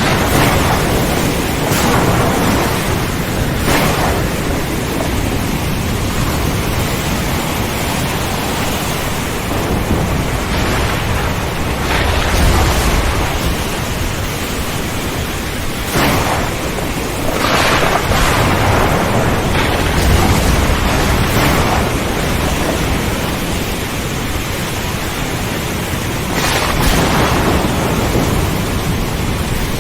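Thunderstorm: steady heavy rain with thunder cracking and rumbling several times over the downpour.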